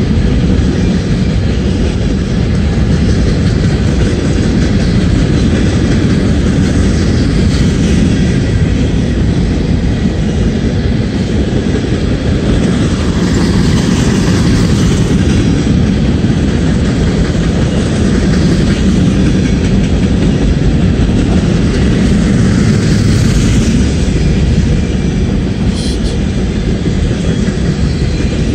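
Norfolk Southern covered hopper cars rolling past: a steady, loud rumble of steel wheels on rail with clickety-clack.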